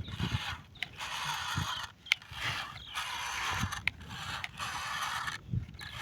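Plastic toy vehicles whirring and rattling in short runs of about a second each, with clicks and low knocks in the gaps between runs.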